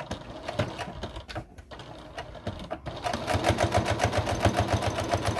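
Domestic electric sewing machine stitching through cotton fabric: slow, uneven stitches for the first few seconds, then running steadily at speed, a rapid even patter of needle strokes from about three seconds in.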